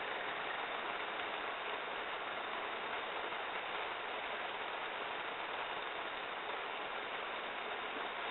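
Heavy rain falling steadily on a wet road and puddles: an even, unbroken hiss.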